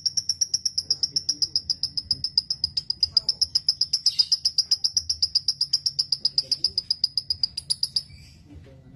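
A bird's long, rapid trill: an even run of high, clipped notes, about eight or nine a second, slowly falling in pitch, that stops about eight seconds in.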